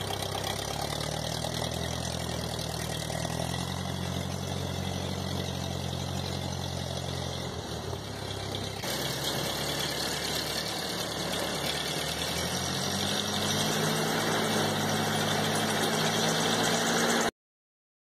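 1952 Ford 8N tractor's four-cylinder flathead engine running steadily while pulling a shrub out by its root ball on a strap. About nine seconds in the sound changes abruptly, the engine fainter at first, then growing louder as the tractor drives up close.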